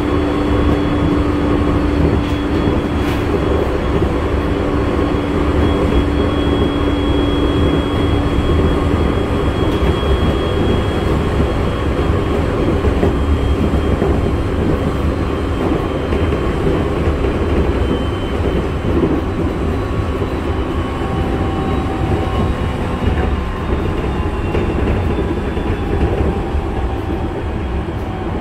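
JR 701 series electric train heard from inside the passenger car while running at speed: a steady rumble of wheels on rail with the hum and whine of its MT65 traction motors. A high whine slowly falls in pitch, and the overall sound eases slightly near the end.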